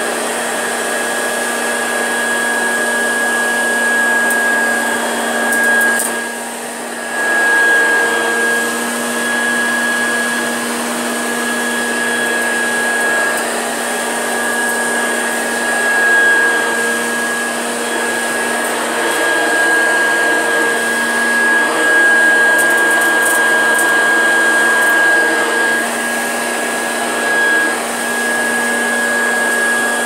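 Hoover Junior upright vacuum cleaner running steadily with a high whine, pushed over a mat of spilled rice that it fails to pick up. Its loudness dips briefly about six seconds in.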